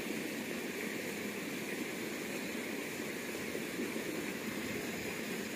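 Steady rushing noise with no distinct events, even in level throughout.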